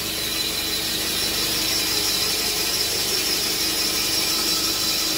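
Repco Programatic cylinder boring machine running with its boring bar turning inside a cylinder of a Nissan RB30 engine block: a steady mechanical whine with a high squeal over it, growing a little louder over the first second or two.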